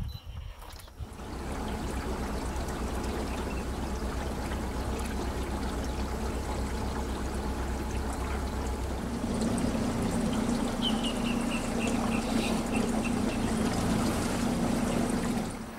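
A boat under way: water rushing along the hull over a steady motor hum that steps up in pitch about nine seconds in. A quick run of high chirps sounds near the end.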